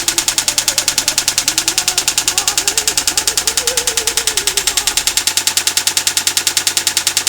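Smith Corona Electra XT electric typewriter striking type in a fast, perfectly even run of about ten strikes a second, over the steady hum of its motor.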